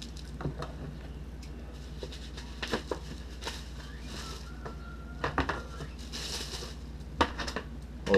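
Cardboard box and packing being handled and opened: scattered light clicks, knocks and rustles, over a faint steady hum.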